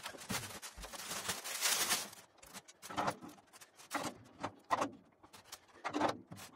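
Plastic wrapping crackling as it is pulled off a drum, followed by several separate knocks and clinks as the floor tom's metal legs are fitted into their brackets on the shell.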